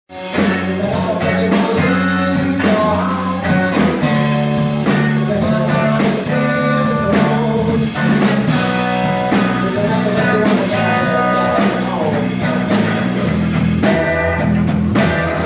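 Live band playing an upbeat blues number, with drums on a steady beat of about two hits a second over bass and pitched instruments. It starts abruptly at full volume.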